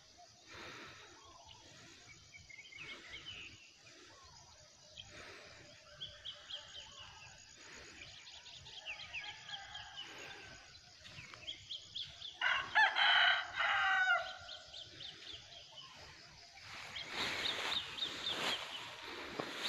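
A rooster crows once, a long call of about two seconds, roughly two-thirds of the way through, over scattered small-bird chirping. Two short bursts of rushing noise come near the end.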